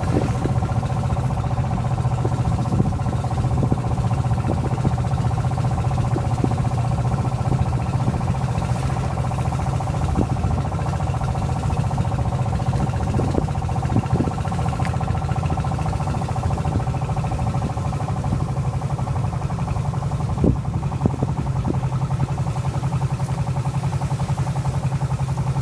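Small wooden boat's engine running at a steady speed as the boat pushes along, with a couple of brief knocks about twenty seconds in.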